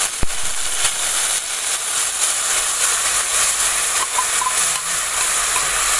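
Wet ground mustard-seed and green-chilli paste sizzling in hot mustard oil in a kadai, a loud steady hiss, with a single knock just after the start.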